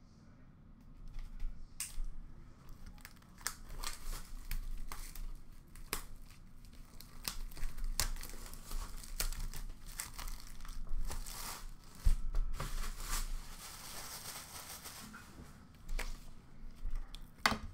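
Plastic shrink wrap being torn and peeled off a sealed cardboard box of hockey cards: irregular crinkling and ripping, with a sharp knock about twelve seconds in.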